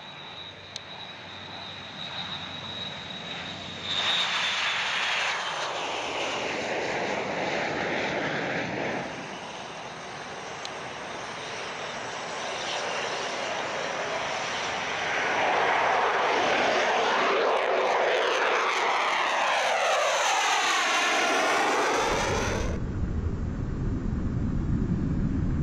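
Boeing MQ-25 Stingray's Rolls-Royce AE 3007N turbofan engine running at takeoff power as the aircraft rolls and climbs out, a steady jet rush that grows louder and takes on a swirling, phasing sweep as it passes. Near the end it cuts to a deep, steady rumble of the aircraft in flight.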